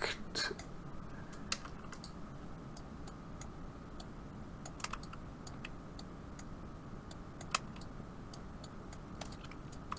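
Irregular clicks of a computer mouse and keyboard, about a dozen sharp clicks spaced unevenly, over faint steady background noise.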